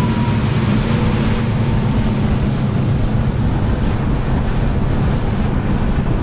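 Center-console boat running at speed on twin outboard motors: a steady engine drone under heavy wind rush on the microphone and water rushing past the hull.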